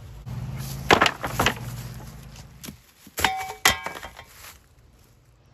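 Wooden pallets set down on the ground with a few hard knocks about a second in, then metal tools clanking together around three seconds in, with a brief ringing.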